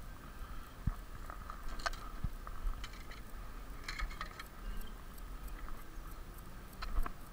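Scattered light clicks, ticks and a couple of dull thumps of handling: metal pliers and a hooked topwater popper being worked free of a bass's mouth, then the pliers set down on a tackle bag.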